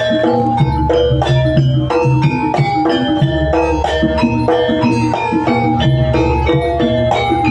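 Live Javanese jaranan gamelan music: quick, stepping runs of tuned metal percussion notes over a steady drum beat.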